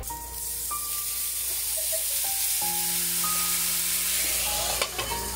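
Gyoza sizzling hard in a hot oiled frying pan, a steady high hiss that begins suddenly, with steam rising off the pan. Near the end a glass lid goes on with a sharp knock and the sizzle is muffled.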